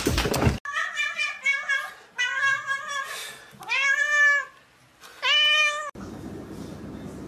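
A cat meowing over and over: a string of short meows, then a long meow that rises and falls in pitch, then a final held meow. A brief burst of noise comes at the very start, and near the end the meowing cuts off into steady background noise.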